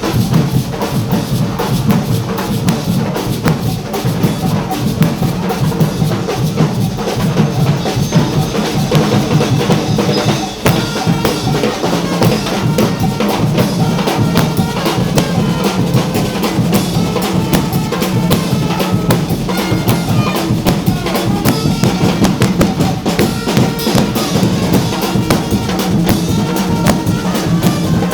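Carnival music driven by loud, dense drumming, rapid drum strikes running on without a break.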